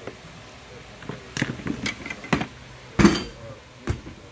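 Solar panel MC4 connectors being unlocked with a plastic disconnect tool: about five sharp plastic clicks and knocks as the latch tabs are released and the pair pulled apart, the loudest about three seconds in.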